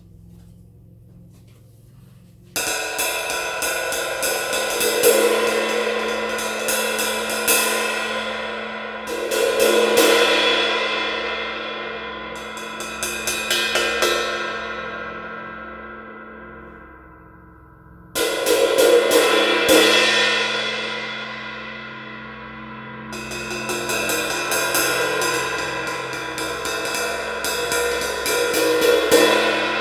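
Zildjian 20-inch 1970s Avedis crash ride cymbal played after a keyhole repair, its mount hole fitted with an oversize sleeve. It is struck again and again in swelling runs with a long, bright ringing wash. The first run starts suddenly about two and a half seconds in and dies away; a second run starts sharply about eighteen seconds in.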